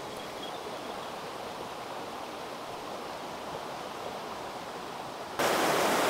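Mountain stream running, a steady rush of water; a little over five seconds in it becomes suddenly louder and brighter.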